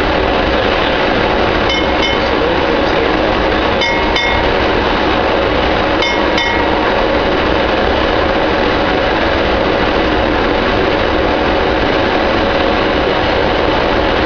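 F/A-18 Hornet's twin jet engines running loud and steady at high power on a carrier catapult during the pre-launch run-up. Short paired high beeps sound three times, about two seconds apart, in the first half.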